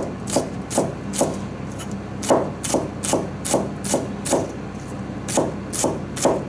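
Kitchen knife finely slicing turnip-leaf stalks on a plastic cutting board, each stroke a crisp cut ending in a knock on the board, about two to three cuts a second in short runs with two brief pauses.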